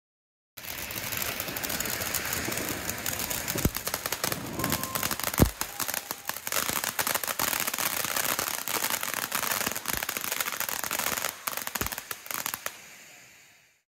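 Fireworks crackling densely and steadily, with a handful of louder, deeper bangs, the strongest about five seconds in; the crackle fades out near the end.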